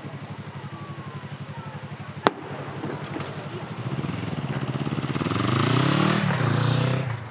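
A single sharp firework bang a little over two seconds in, then a motor vehicle driving past close by. The engine grows louder and falls in pitch as it goes by, fading away near the end.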